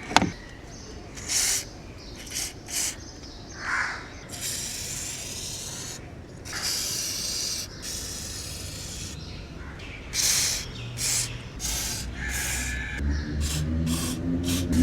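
Aerosol liquid grease spray hissing in a series of bursts as it lubricates car door locks and hinges. Most bursts are short, a couple last about two seconds, and a sharp click comes at the very start.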